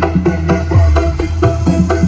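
Loud music with heavy bass and a quick, steady drumbeat, blaring from a truck-mounted 'horeg' parade sound system of stacked speaker cabinets.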